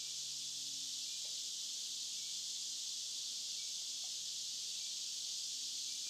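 Steady, high-pitched chorus of insects, unbroken throughout, with faint low drawn-out bullfrog calls beneath it, each lasting about a second and coming several times.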